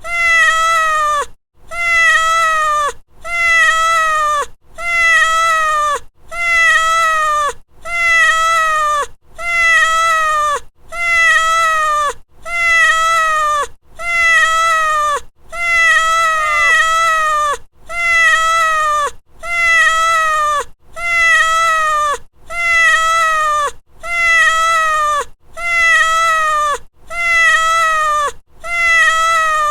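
A domestic cat's meow, looped: the same call repeats about every one and a half seconds, each one dropping in pitch at its end.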